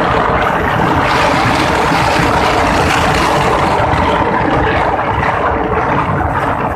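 Wind rushing over the microphone on a moving motorcycle, with the motorcycle's engine running under it: a steady, loud rush.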